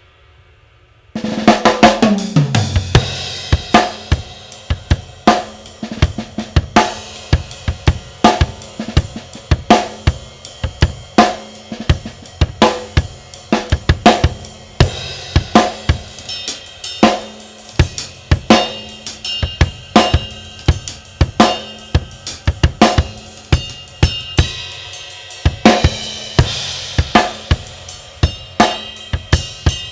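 A drum kit starts playing about a second in and keeps a steady beat of bass drum and snare under a ringing ride cymbal, a Zildjian Avedis 24-inch medium ride. The cymbal wash grows brighter and busier about 25 seconds in.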